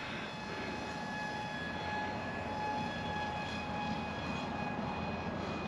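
Small electric motor and propeller of a sub-250 g RC plane whining steadily in flight at a gentle power setting, over a soft hiss.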